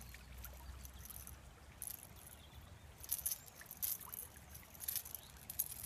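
Shallow river water running, with a string of short, sharp splashes and clicks as a small pike, just caught on a popper lure, is held dangling over the water.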